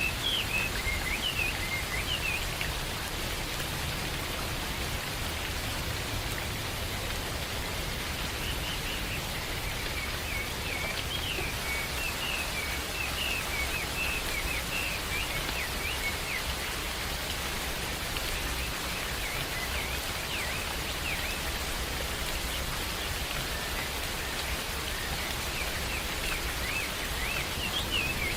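Steady rain falling in a forest, an even hiss, with bursts of bird chirps at the start, in the middle and near the end.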